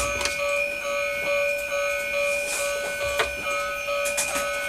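Electronic sound effect from a toy train's built-in speaker, set off by a button press: a short pattern of beeping tones repeating about twice a second. A few plastic clicks come near the end as the toy is rolled on its wheels.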